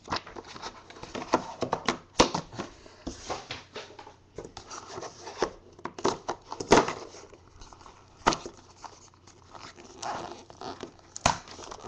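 Fingers picking, tearing and prying at the sealed packaging of a football trading-card box, a run of irregular scratchy scrapes and rustles broken by several sharp clicks, as the packaging resists opening.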